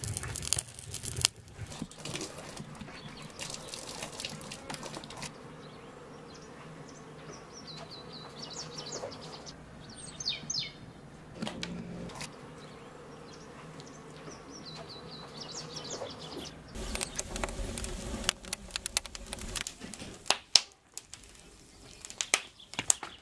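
Forest ambience with small birds chirping a few short series of high calls in the middle, and scattered clicks and crackles near the start and again in the last few seconds.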